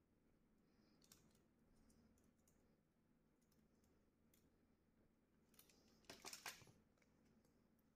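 Near silence broken by faint clicks of plastic parts as an HP LaserJet Pro MFP M227fdw fuser assembly is handled and pulled apart, with a short cluster of clicks about six seconds in.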